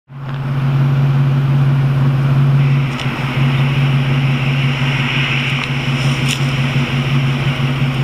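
A motor vehicle's engine idling steadily, a constant low hum, with rushing noise that grows louder about a third of the way in.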